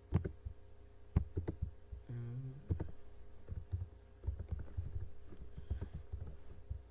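Computer keyboard keystrokes and mouse clicks, irregular taps in small clusters, over a steady low electrical hum.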